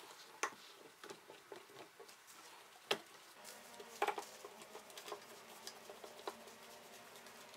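Scattered light clicks and taps of woodworking clamps being handled on a clamped wooden rod, the sharpest about three and four seconds in.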